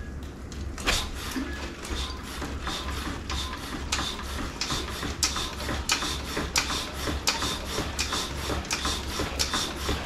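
The front forks of a Royal Enfield Interceptor 650, fitted with new YSS springs, are pumped up and down by hand on the handlebars to test the suspension. They give a rhythmic series of short clicks and knocks, about two a second, as the front end compresses and rebounds. A steady low hum runs underneath.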